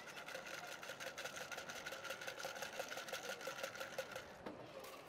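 Ice rattling in a metal cocktail shaker shaken hard and fast, about six or seven strokes a second, stopping sharply about four seconds in. A single knock follows about half a second later.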